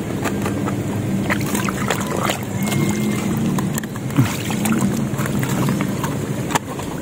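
Water splashing and sloshing in short, irregular strokes, over a steady low hum.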